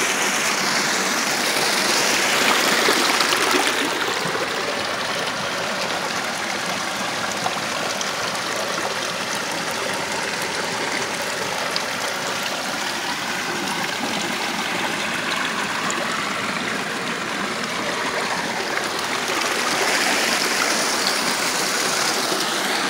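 Water running through an opening in a stone wall and spilling over wet rocks into a pond: a steady rushing splash. It swells a little louder about two seconds in and again near the end.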